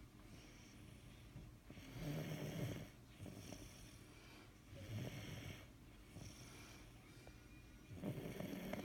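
Deep snoring from a sleeper: three loud snores about three seconds apart, each followed by a softer breath out.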